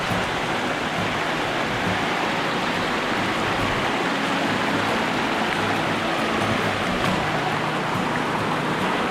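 Rushing stream water, a steady loud rush.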